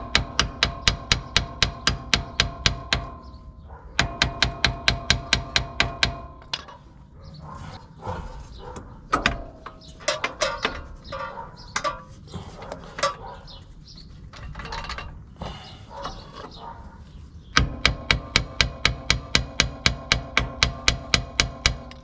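Hammer rapidly striking a steel suspension part, about five ringing metallic blows a second, in three bursts, driving a new lower control arm that is a millimetre out of line into its mount. Between the bursts come irregular knocks and clanks of metal.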